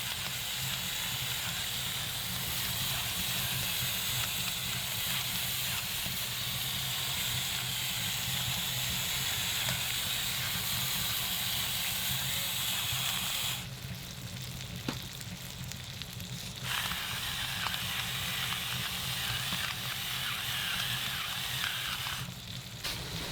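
Chorizo, beans, green pepper and onion sizzling in a pan on a wood-burning camp stove, a steady frying hiss. The sizzle drops away for about three seconds a little past halfway, and again briefly near the end.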